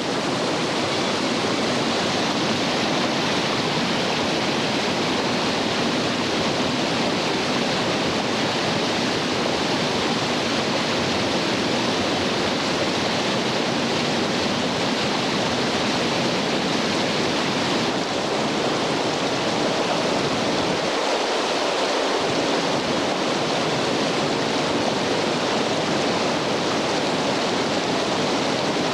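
Steady rush of whitewater rapids pouring over and around boulders in a creek running at about 1820 cfs.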